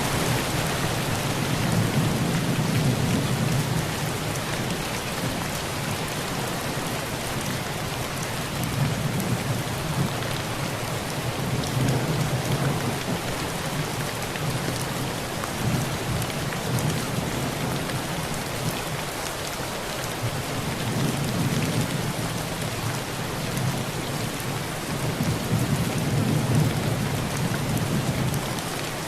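Heavy rain pouring steadily on a tin roof, with low thunder rumbles swelling and fading about five times.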